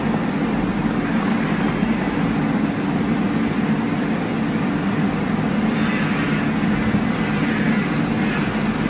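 Steady, loud noise of a running vehicle, unbroken, with no clear rhythm or pitch changes.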